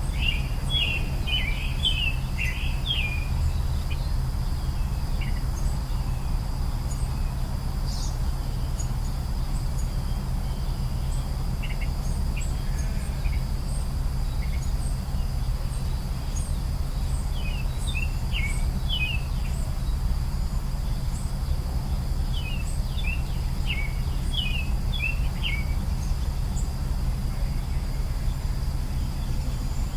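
Wild songbirds chirping in quick runs of short notes, in bursts at the start, a little past halfway and again about three quarters through, over a steady high insect drone and a low steady background rumble.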